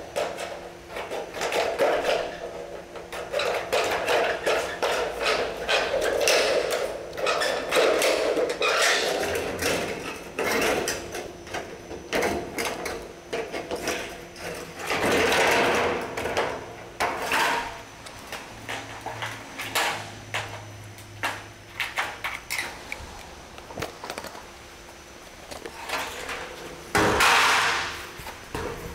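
Sheet-metal Colorbond fascia being handled and worked with a hand tool: irregular clicks, knocks, scrapes and rattles of thin painted steel. About a second before the end there is a louder metallic clatter as a long length of fascia is lifted.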